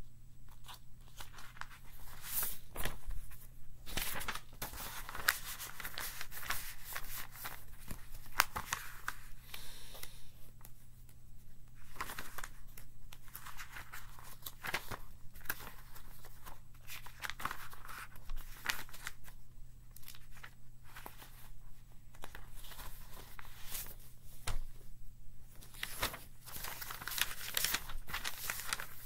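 Sheets of paper rustling and crinkling in irregular bursts as they are handled and leafed through, with sharp clicks and taps among them.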